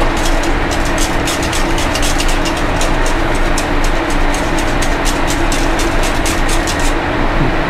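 A wire whisk stirring thick polenta in an aluminium saucepan, its wires clicking rapidly and unevenly against the pan, over the steady hum of a commercial kitchen exhaust hood.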